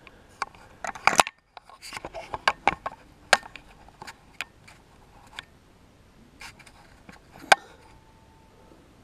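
Handling noise from a hand gripping and shifting the camera: a run of irregular clicks and scrapes, thickest in the first few seconds, with one sharp knock near the end.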